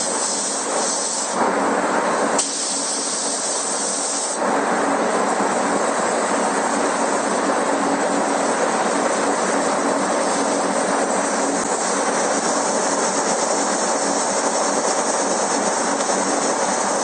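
Air spray gun hissing steadily as it sprays paint, with a low steady hum underneath. The hiss gets louder about four seconds in.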